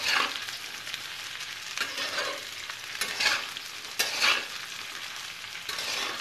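Sliced spiny gourd frying in hot oil in a metal kadai, stirred with a steel spatula: a steady sizzle with about five scraping stirring strokes.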